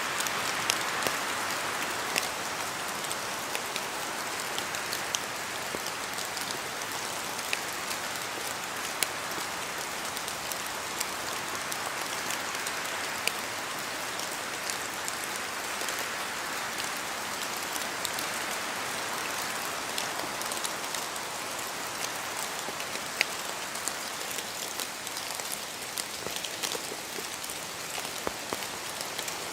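Steady rain falling on forest trees, with many scattered sharp drops as water falls from the leaves.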